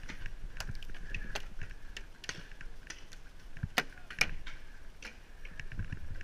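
Irregular sharp clicks and cracks of skirmish guns firing around the field, with two louder cracks a little before and a little after four seconds in.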